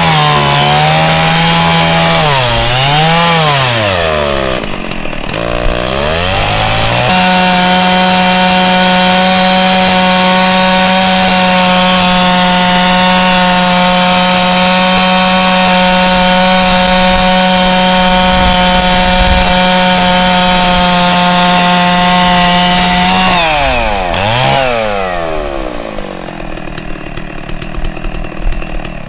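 Two-stroke chainsaw revving up and down, then held at a steady high speed for about sixteen seconds while it cuts wood, before easing off and dropping away near the end. Its chain is dull, which the crew say makes the saw run hot and not sound quite right.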